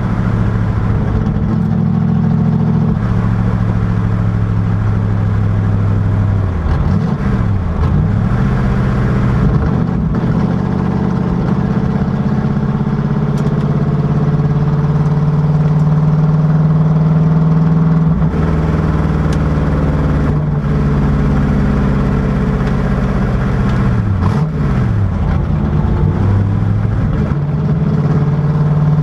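Factory Five Racing Cobra Daytona Coupé replica's V8 engine running loud and steady at speed on track. Twice its note dips and climbs back up, about a quarter of the way in and again late on, as the car lifts and changes gear.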